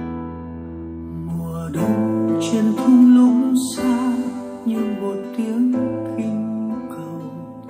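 Music from a Vietnamese ballad played on a JBL Authentics 500 speaker: an instrumental passage of strummed acoustic guitar over a bass line, with no vocals.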